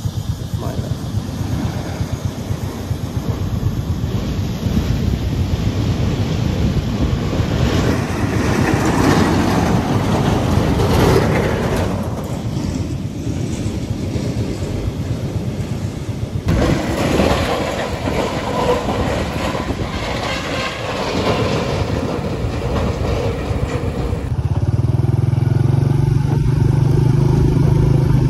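Motorcycle riding: the engine running under loud wind and road rumble with some clatter. The sound changes abruptly about 16 seconds in and again about 24 seconds in, ending in a steadier, even engine hum.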